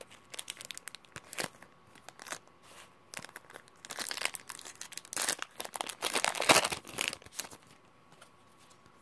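Foil wrapper of a Pokémon trading-card booster pack being crinkled and torn open by hand: sparse crackles at first, then a dense run of crinkling and tearing in the middle, stopping near the end.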